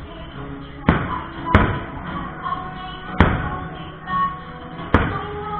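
Fireworks shells bursting in four sharp bangs, a second or more apart, over the show's music from loudspeakers.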